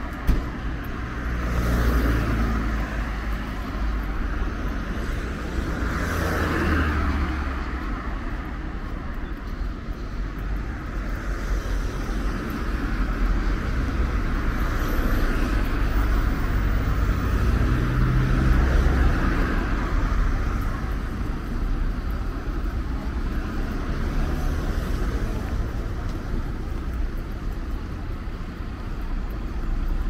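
Road traffic on a multi-lane city street: cars driving past one after another over a steady low rumble, with louder swells as vehicles pass about two and seven seconds in. A short sharp knock comes right at the start.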